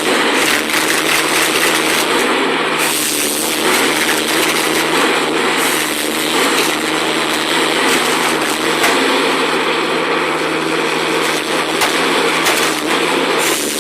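A small engine running at a steady, even speed.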